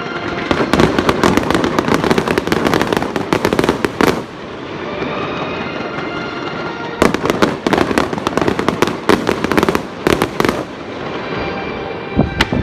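Fireworks crackling in dense rapid volleys, two long bursts a few seconds apart, over music playing in the background.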